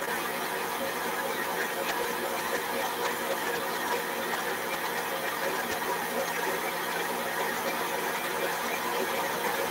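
Electric stand mixer motor running steadily at a low speed with a whirring hum, beating butter mixture coloured with red food colouring paste.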